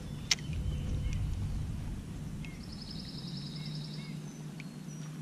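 Outdoor lake ambience: a low rumble with a sharp click about a third of a second in, a few short bird chirps and a brief rapid trill midway, and a steady low hum from about three seconds in.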